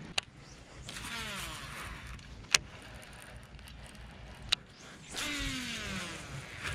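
A baitcasting reel whirring as its spool pays out line on two casts, the whine falling in pitch as the spool slows. Single sharp clicks of the reel come between the casts.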